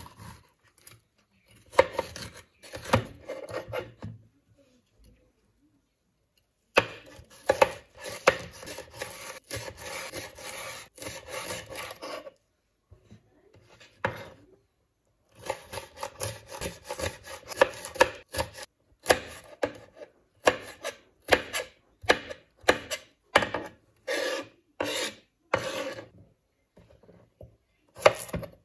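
Kitchen knife cutting red bell pepper on a wooden cutting board. It comes in runs of quick strokes with short silent gaps between them, and later in spaced single chops.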